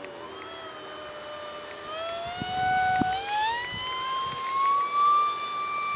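Micro electric ducted fan from a UMX F-16 whining as the small RC jet flies. The whine drops in pitch at the start, holds low, then climbs back up from about two seconds in as the fan spools up.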